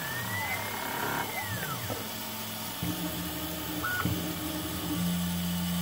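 CNC-converted PM-25MV benchtop milling machine cutting an aluminium soft jaw with an end mill. The axis drive motors whine, their pitch rising and falling as the table speeds up and slows through the contour in the first second or so, then settling into steady hums from about three seconds in, over the running spindle.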